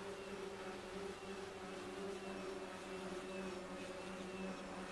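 Electric motors and propellers of a home-built rotating-wing VTOL craft hovering, a steady buzzing drone that holds one pitch.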